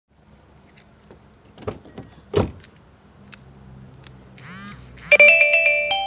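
A few faint clicks, then a string of rising electronic sweeps and, about five seconds in, a loud ringing multi-tone chime from a Toyota Vios's PKE keyless smart alarm system.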